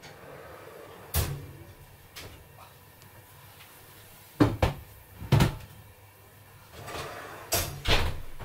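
Clunks and metallic knocks of a heavy black enamel roasting pan with its lid being taken out of the oven and set down on the hob: a sharp clunk about a second in, two loud knocks about a second apart midway, and the oven door shutting with a cluster of knocks near the end.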